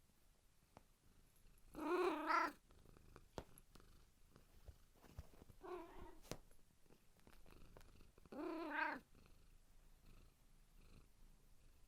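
Domestic cat purring steadily, broken by three short meows: one about two seconds in, a shorter, softer one around six seconds, and one near nine seconds.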